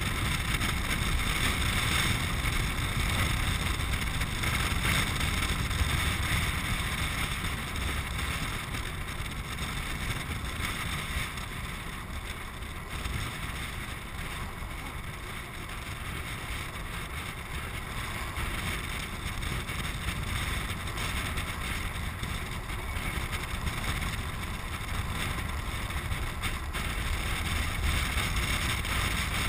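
Steady wind rush and low rumble from a land sailer moving across a dry lake bed, buffeting the action camera's microphone; it eases off a little about halfway through.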